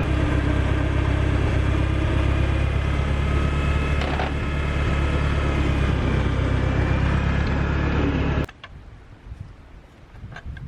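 An engine running steadily at an even speed, cutting off suddenly about eight and a half seconds in.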